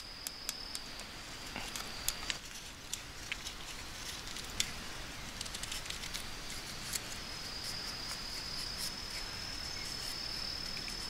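A knife blade shaving thin curls from a wooden stick to make a feather stick, heard as scattered short scrapes and clicks. Behind it is a steady high-pitched insect trill that drops out for a few seconds in the middle.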